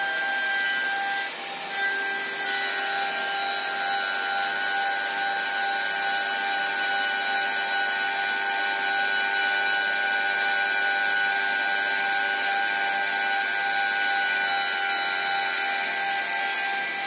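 Chinese air-cooled 2.2 kW, 24000 rpm spindle running at high speed with a steady whine as its cutter mills grooves in a pine board. Under it runs a steady rush of air from a hose nozzle held at the cut.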